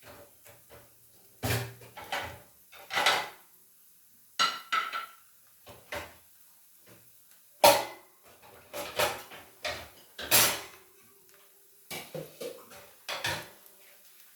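Metal kitchen utensils and cookware clattering and knocking, about a dozen sharp clinks and scrapes at irregular intervals.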